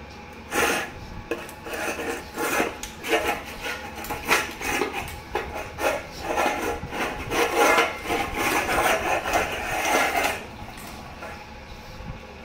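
Two pugs scuffling and wrestling on a concrete floor: a rapid, irregular run of rough scrapes and scuffles that starts about half a second in and dies down about ten seconds in.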